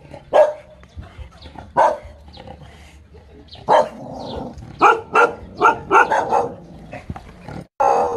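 Small dog barking at a fake tiger: spaced alarm barks at first, then a quick run of barks about five seconds in.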